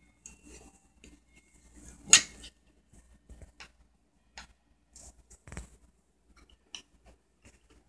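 Scattered clicks and knocks of a speaker driver being handled and taken apart by gloved hands on a wooden tabletop, with one sharp knock about two seconds in and a duller thump a few seconds later.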